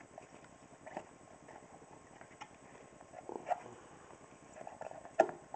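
Handling noise from a car subwoofer being turned in the hands: a few faint, scattered knocks and clicks, the loudest near the end.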